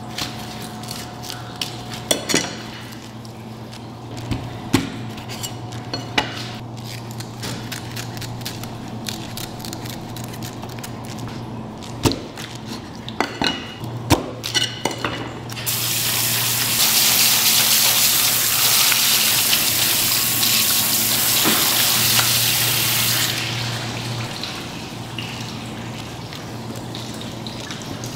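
Water running hard from a tap into a sink for about seven seconds, turned on and off abruptly about halfway in. Before it come scattered clicks and knocks, all over a steady low hum.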